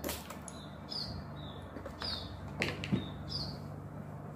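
Small birds chirping, short falling chirps repeated every second or so, with a few sharp metallic clicks and knocks from the small engine and tools being handled on the workbench, over a faint low steady hum.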